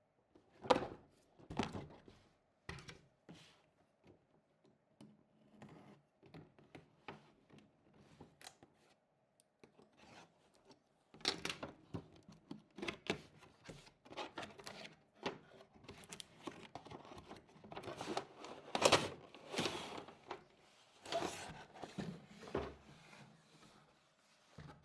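Cardboard box and packaging of an RC monster truck being handled and opened: irregular rustles, scrapes, tearing and knocks, sparse at first and busier in the second half.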